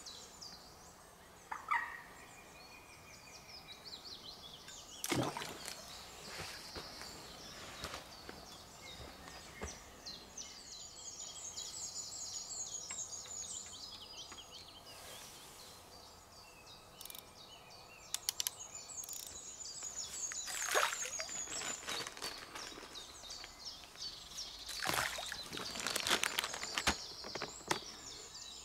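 Songbirds singing, a busy chorus of repeated high chirps and trills. Several sharp rustling knocks sound close by, about five seconds in, near twenty-one seconds and in the last few seconds.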